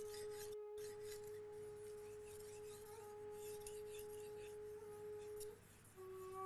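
Soft background music, a long held flute-like note that changes pitch briefly near the end. Beneath it, faint scraping of a steel knife blade stroked across a 3000-grit whetstone.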